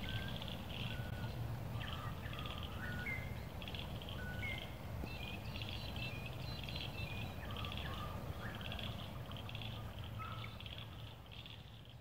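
Outdoor bird chorus: short whistled bird notes over a high, pulsing chirring and a steady low rumble, fading out near the end.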